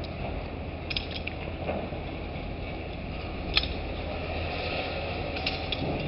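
Dockside crane's hoist machinery running steadily as it works the clamshell grab on its wire ropes, with a few sharp clicks, the loudest about three and a half seconds in.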